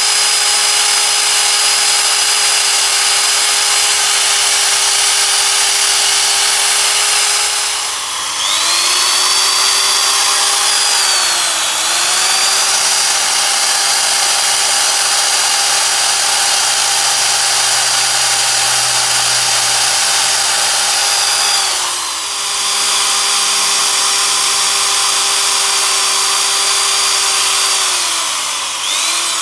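Electric hand drill running with a steady whine as its bit bores through the metal ferrule of a pressure-cooker handle. The pitch dips and picks back up about three times, and sags near the end.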